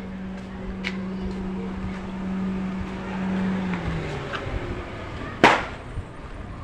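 A small car's engine running as the car drives slowly past, its low hum dropping in pitch just before the four-second mark. A single sharp bang about five and a half seconds in is the loudest sound.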